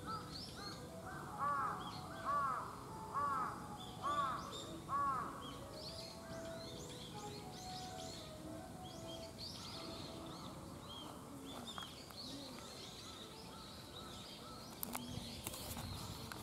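A crow cawing five times, about once a second, over steady chirping of small birds. A few sharp clicks and rustles near the end.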